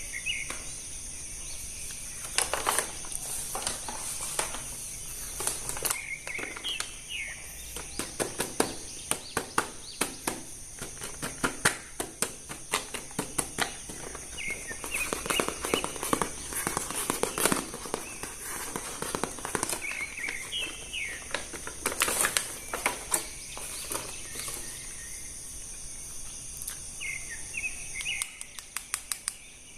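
Plastic toy and packaging being handled, with many irregular sharp clicks and crackles. Behind them birds chirp now and then, over a steady high-pitched drone.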